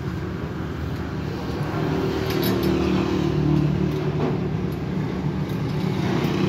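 Diesel tractor engine running steadily, growing louder and stronger about two seconds in.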